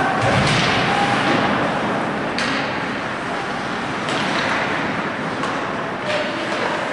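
Ice hockey game in play: a steady din from the rink, with skates on the ice and a few sharp knocks of sticks, puck or boards.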